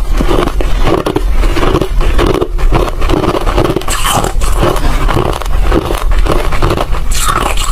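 Crunchy ice being bitten and chewed close to the microphone: loud crackling, grinding crunches in a steady chewing rhythm of about two a second.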